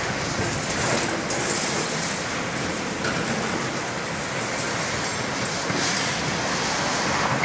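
Large tracked excavators at work, a Cat 352 and a demolition excavator with a sorting grapple. Their diesel engines run under a steady rattle and scrape of rubble and scrap metal being handled.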